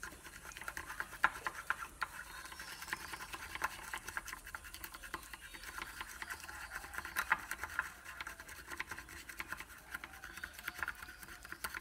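Chopsticks whisking egg yolk and sugar in a ceramic bowl: a rapid, uneven run of clicks and scrapes as the sticks strike and rub the sides of the bowl.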